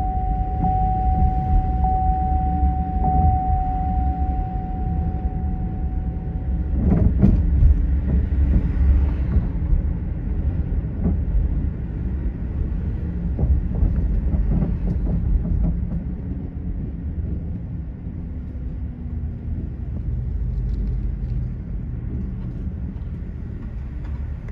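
Low, steady road and engine rumble of a car driving on city streets. A single steady high tone runs for the first seven seconds and stops, followed by a brief sharp knock.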